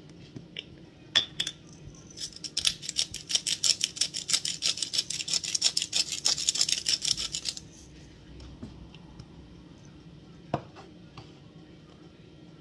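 Glass pepper grinder being twisted by hand, grinding peppercorns: a rapid, even run of crisp clicks, about six a second, lasting around five seconds, after two sharp clicks about a second in. A single knock follows near the end.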